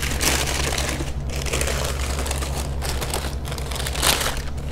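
Tissue paper rustling and crinkling as it is unfolded and pulled back by hand inside a shoe box, with a louder crinkle about four seconds in.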